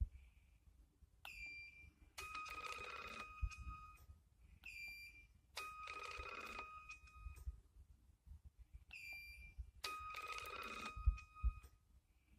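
Repeating electronic signal, three times over: a short high chirp, then about a second later a longer warbling tone lasting nearly two seconds, much like a phone ringing.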